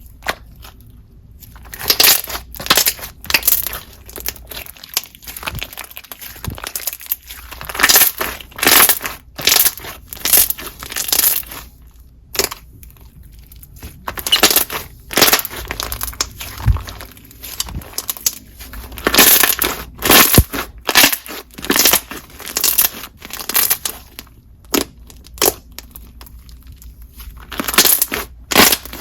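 Thick, chewy glossy slime with foam chunks being squished and pressed by hand, making irregular sharp bubble pops and squishy crackles in quick clusters.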